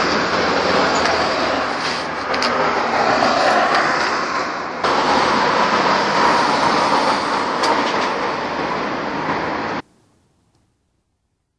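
Loud, steady rumble and hiss of street traffic, with a few faint clicks, that cuts off abruptly near the end.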